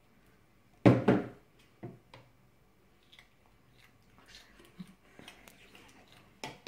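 Metal spoon scraping and tapping while Nutella is scooped from the jar into a plastic measuring jug: one louder knock about a second in, then a few light clicks and scrapes.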